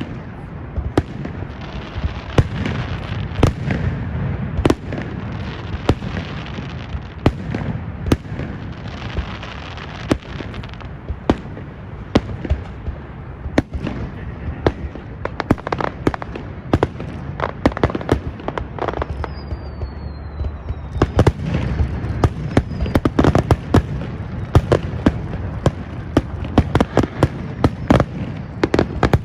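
Fireworks display: a dense, irregular run of bangs and crackling pops over a steady low rumble. A thin falling whistle comes about two-thirds of the way in, and the bangs grow louder and thicker after it.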